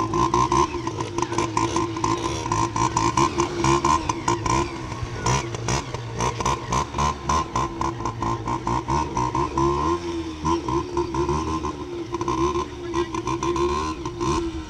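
Motorcycle engine running steadily with a fast pulsing beat, its pitch wavering up and down about ten seconds in and again near the end.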